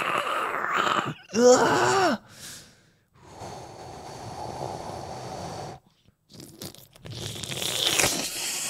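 A man's wordless vocal sounds. There is a short strained groan about a second and a half in, then a long breathy rush of air, and a sharp hissing gasp near the end.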